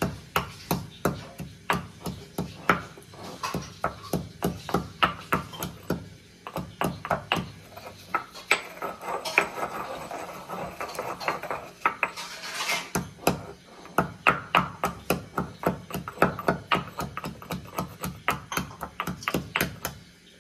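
Pestle pounding black peppercorns and a piece of fresh ginger in a mortar, in steady strikes about two or three a second. In the middle the strikes give way to a few seconds of grinding and scraping before the pounding resumes, crushing them to a coarse paste.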